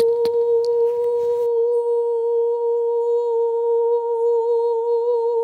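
A voice humming one long held note, toning on a single steady pitch that wavers slightly in the second half. A faint hiss with a couple of small clicks fades out in the first second and a half.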